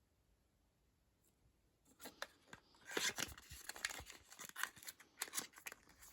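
Packaging being handled and crinkled: a quick, irregular run of crackles and clicks that starts about two seconds in.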